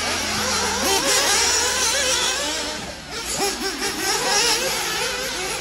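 Small nitro engines of several 1/8-scale RC racing buggies, revving up and down rapidly and overlapping as the buggies race around the dirt track.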